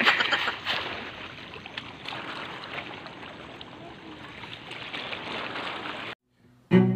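Seawater sloshing and splashing as a mesh net bag of sea urchins is swished and rinsed in shallow water. It cuts off abruptly a little after six seconds, and music with low bowed-string notes begins at the very end.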